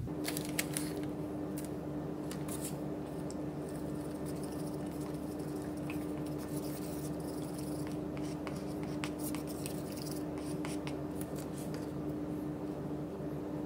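A spoon stirring and scraping in a plastic tub of homemade milk paint as titanium dioxide pigment is worked in: many small scratchy clicks, over a steady low hum.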